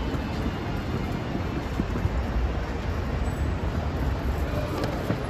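Steady low rumble of road traffic moving along an airport terminal's curbside lanes, with no distinct events.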